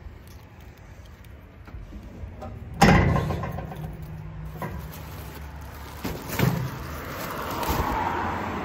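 Drum inlet of an underground waste container opening after a waste-pass scan: a loud metal clunk about three seconds in, then a short low hum. Then come a few knocks and a growing rustle as a plastic bin bag is pushed into the drum.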